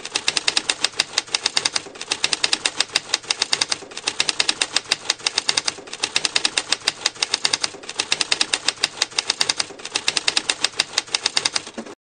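Typewriter keys striking rapidly, about ten clacks a second, in runs of about two seconds with short pauses between them.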